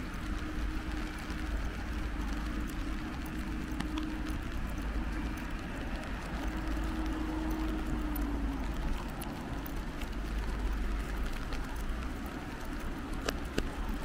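Outdoor rain ambience: a steady hiss of rain with scattered sharp drop ticks, over a deep low rumble. A faint steady hum comes and goes, trailing off about eight seconds in.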